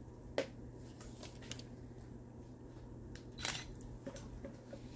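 A few light clicks and scrapes of a spatula against a plastic chopper bowl as soft cauliflower-and-avocado dough is scooped out into a grill pan; the loudest is about three and a half seconds in. A faint steady hum runs underneath.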